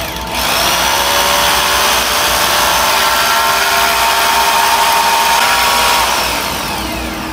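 Corded electric drill spinning up to speed, running steadily at full speed with a high motor whine, then released and winding down near the end.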